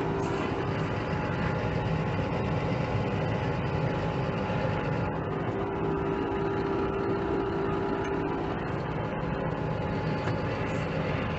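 Dump truck's diesel engine running steadily, heard from inside the cab as a continuous low hum.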